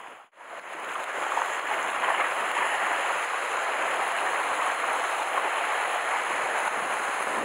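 Sea surf washing and churning over the shoreline rocks close below, a steady rushing noise that starts after a momentary gap at the very beginning.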